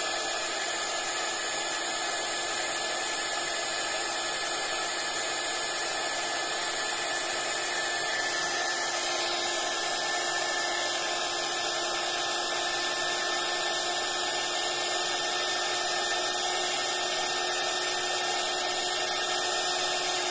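Embossing heat gun blowing hot air to melt embossing powder: a loud, steady rush of air over a steady motor hum.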